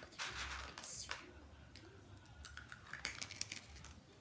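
Small hard snack pieces clattering in a clear plastic bowl: a brief rustle near the start, then a run of light clicks and taps.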